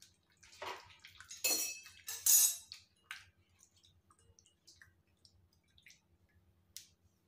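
Hands squeezing and mashing boiled raw mangoes in a bowl of water to press out the pulp: wet squelching and splashing, with a few louder splashes in the first three seconds, then only faint clicks.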